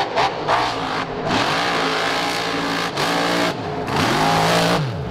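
Big-engined mud truck revving hard through a mud pit, its pitch climbing and dropping several times as the throttle is worked.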